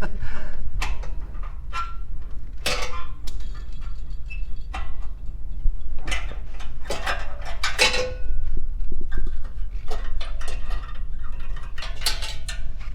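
Metal exhaust springs and a spring-puller tool clinking and scraping against the exhaust as the springs are pulled off, many sharp clinks with short metallic rings, over a steady low hum.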